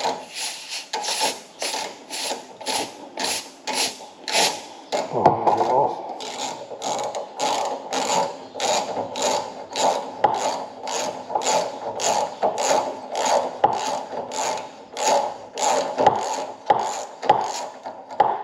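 Quarter-inch ratchet clicking steadily, about three clicks a second, as it turns a hand reamer through a steel door hinge pin hole. Under the clicks the reamer rasps as it cuts, louder for a moment about five seconds in.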